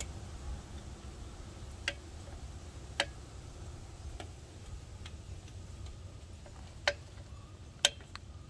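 Small metallic clicks from a valve core tool turning a new valve core into a motorhome dual-wheel valve stem extension: about six sharp ticks at irregular intervals, over a faint low rumble.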